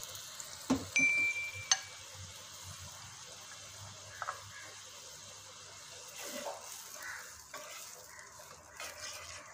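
Canned-fish brine with onion and garlic simmering faintly in a non-stick wok, with a wooden spatula stirring and scraping through it toward the end. About a second in come a couple of sharp clicks and a short high beep.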